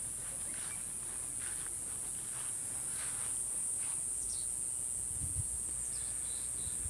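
Steady, high-pitched insect buzz, with faint short chirps over it and a low thump a little after five seconds in.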